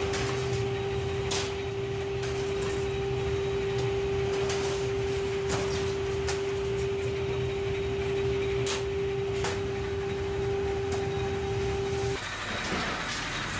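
Belt-driven sheet-metal cutting machine running with a steady humming tone, with a few sharp metallic clanks from aluminium sheets being handled. The hum cuts off near the end, leaving a noisier clatter.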